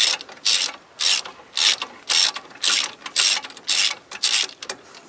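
Hand ratchet clicking in even back-and-forth strokes, about two a second, as it backs out a power steering box mounting bolt; the strokes stop about four and a half seconds in.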